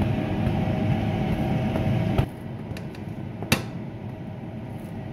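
A steady low mechanical hum that cuts off suddenly about two seconds in, then a single sharp clack of a metal spatula against a nonstick frying pan as a pancake is worked loose, with a few lighter ticks around it.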